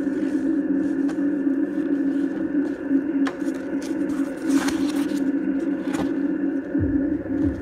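Cardboard box and foam packing being handled as the box is opened: scattered light clicks and scrapes, a louder rustling scrape about halfway through, and a couple of low thuds near the end, over a steady hum.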